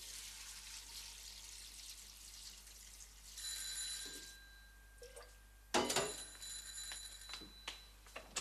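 Water hissing and splashing into a cooking pot in two spells, with a thin whistling tone over the hiss. The second spell starts with a knock about six seconds in.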